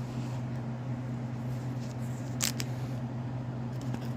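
Steady low electrical hum with a sharp double click about two and a half seconds in and a few faint ticks near the end, from trading cards being handled.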